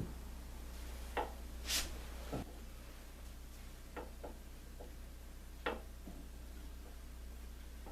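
A few light metal clicks and taps, scattered and irregular, as Dana 35 differential parts such as the center pin are handled, with one short swish about two seconds in, over a low steady hum.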